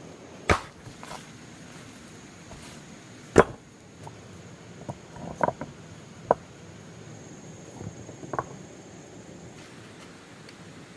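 About seven sharp knocks of something hard being struck, at uneven intervals, the loudest about three seconds in. A faint steady high tone runs beneath them and stops near the end.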